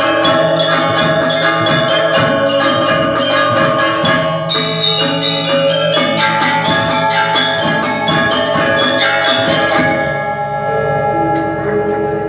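Music from an ensemble of tuned, struck ringing percussion playing a fast, dense pattern of notes. About ten seconds in the rapid strikes stop and a few sustained ringing tones carry on.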